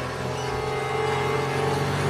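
Film score music over the steady drone of a small plane's engines in flight.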